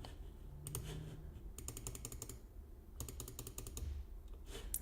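Computer keyboard being typed on, in several short clusters of quick keystrokes.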